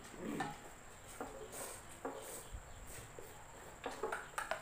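Faint, steady, high-pitched chirring of insects such as crickets, with a few short soft clicks and knocks scattered through it.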